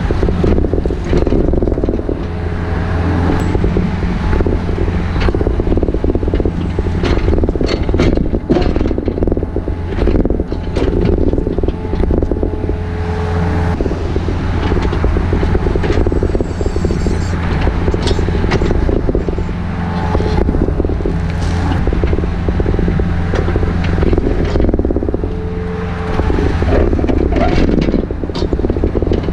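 A heavy engine running steadily, its pitch and load shifting a little, with frequent rattles and clicks over it.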